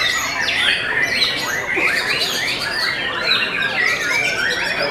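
White-rumped shamas (murai batu) singing without pause, their quick, varied whistles and chatter overlapping thickly as several birds sing at once.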